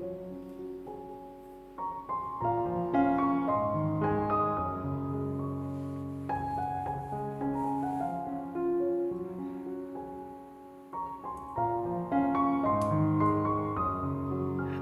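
Background piano music: a gentle melody over chords, played in phrases.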